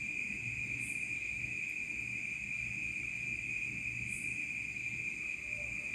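A steady high-pitched whine, like an insect's trill, over a faint uneven low hum, with faint soft hisses about three seconds apart.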